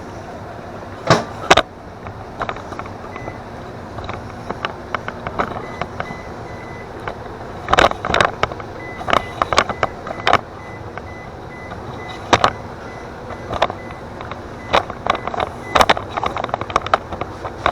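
Microwave oven running with a steady hum while brownie batter cooks, with scattered sharp clicks and knocks of kitchen things being handled over it.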